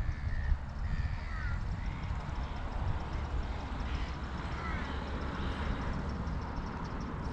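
Wind buffeting the microphone in a steady low rumble, with a few short bird calls, some falling in pitch, about one to two seconds in and again near five seconds in.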